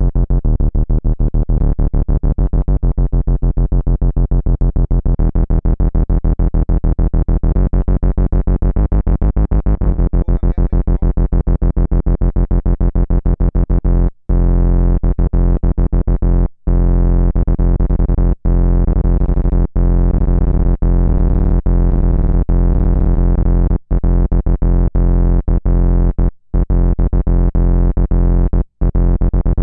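Behringer Poly D analog synthesizer playing an industrial bass line: fast repeated notes retriggered in a rhythm by the gate output of a Behringer TD-3 sequencer, with heavy low end. The pitch steps to new notes a few times in the first ten seconds, and the rhythm cuts out briefly several times in the second half.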